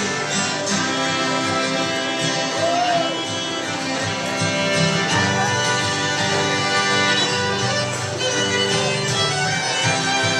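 Bluegrass band playing an instrumental break, a fiddle carrying the melody in long held notes over guitar accompaniment.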